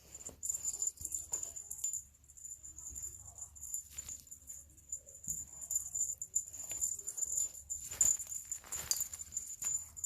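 A small jingle bell shaken and jingling in many irregular short bursts, as when it is batted about.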